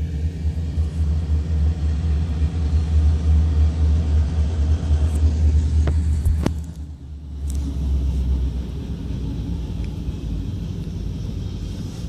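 KCS diesel freight locomotives passing, with a steady low rumble from their engines. Two sharp clicks come around six seconds in, and the rumble dips briefly just after.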